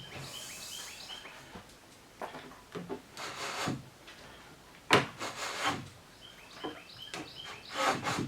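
A steel square tube being slid and shifted against wooden jig blocks on a build table, in several short scrapes with a sharp knock about five seconds in. Faint bird chirps can be heard twice.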